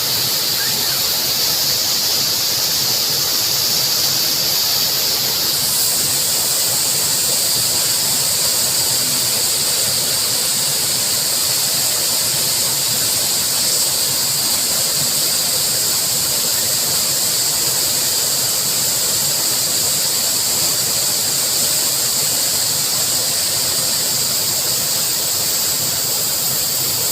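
Waterfall close by: a loud, steady rush of falling water with no let-up, with a steady high-pitched hiss over it, part of which drops away about five seconds in.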